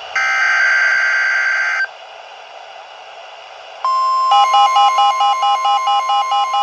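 Emergency Alert System tones. A burst of data-like header tones lasts under two seconds. After a short pause a steady single alert tone starts, and about half a second later a rapid pulsing multi-tone beeping joins it, about three to four pulses a second.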